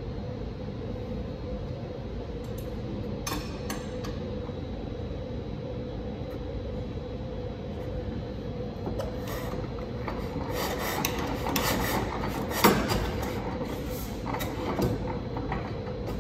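Steady hum of a shop exhaust-ventilation system. From about ten seconds in, metal clicks, clacks and scraping come from the 1919 Hvid single-cylinder oil engine being readied and turned by hand before starting, with one sharp clack near the middle; the engine is not yet running.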